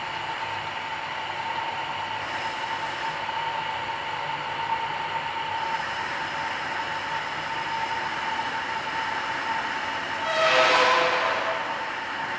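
Belt-driven centre lathe running with a steady whine, and about ten seconds in a louder squeal of several tones lasting a second or so as the single-point cutting tool bites into the end of the job during a facing cut.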